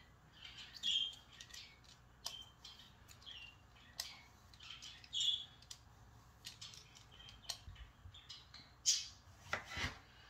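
Swivel vegetable peeler scraping the skin off a zucchini in short rasping strokes, roughly one a second. Near the end a knife cuts through the zucchini onto a wooden chopping board.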